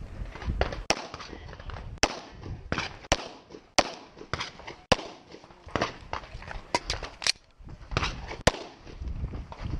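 Semi-automatic pistol fired in an irregular string of about a dozen sharp shots, some in quick pairs, heard from the shooter's own position.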